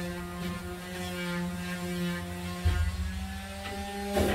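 A steady low electrical or motor hum with a row of overtones, with a dull thump about two and a half seconds in and a short sharp hiss near the end.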